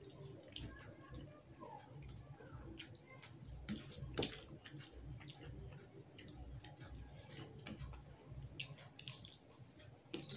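Soft wet squishing and scattered small clicks of a hand kneading rice into fish curry gravy on a steel plate, with some chewing.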